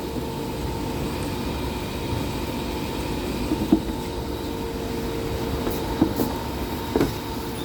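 A steady mechanical hum with a held tone, broken by a few short sharp clicks and knocks; the tone fades out near the end.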